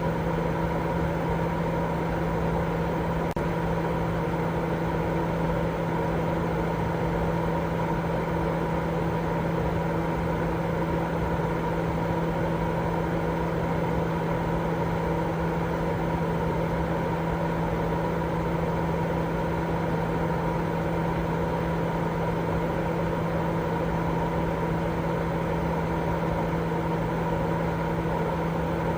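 Continuous white noise for baby sleep: a steady, unchanging low rushing hiss with a constant low hum and faint steady tones running through it, like a fan or an idling engine.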